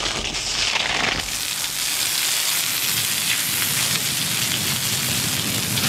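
Fire hose spraying a jet of water: a steady rushing hiss that reaches full strength about a second in.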